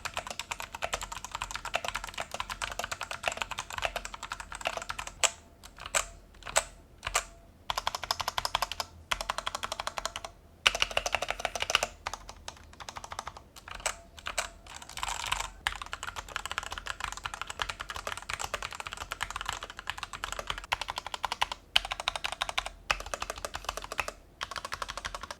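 Typing test on a stock Rexus Daiva 65% mechanical keyboard with Outemu switches: runs of fast keystrokes broken by short pauses. The keystrokes have a hollow case sound and spring ping from the switches, since the board has only plate foam and no case foam.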